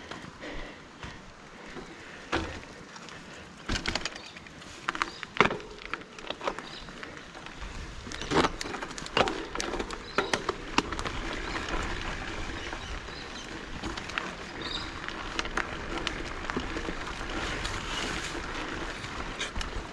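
Mountain bike ridden over a dirt bush trail: scattered knocks and rattles from the bike over bumps, then from about eight seconds a steady rushing tyre noise with a low rumble and more clatter.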